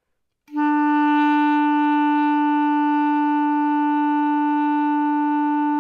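Clarinet playing a written E (left thumb on the thumb key and first finger on the top ring), starting about half a second in and held as one long, steady, even note.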